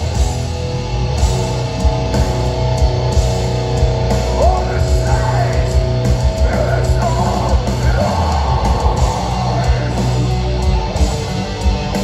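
Live metalcore band playing loud: electric guitars, bass and drum kit, with the singer's vocals coming in around the middle.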